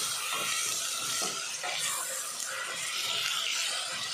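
Chopped onions, tomatoes and green chillies sizzling in oil in a stainless steel pot, with a wooden spatula stirring them and scraping and knocking now and then against the pot.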